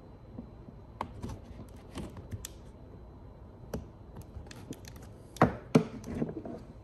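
Plastic clicks and knocks as a Tesla Model Y's plastic grille is worked free of its retaining tabs in the bumper by hand. The clicks come at uneven intervals, with two louder snaps a little past five seconds in.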